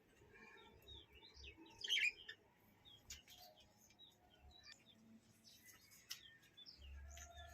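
A flock of budgerigars chirping faintly in short, scattered chirps, with one louder burst about two seconds in.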